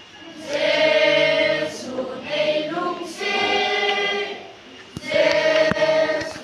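A children's choir singing, held notes in three long phrases with short breaks between them.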